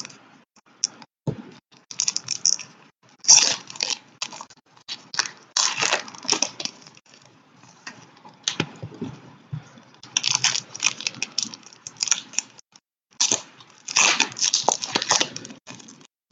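Foil trading-card pack wrappers crinkling and tearing as packs are opened and cards handled, in irregular clusters of crackling.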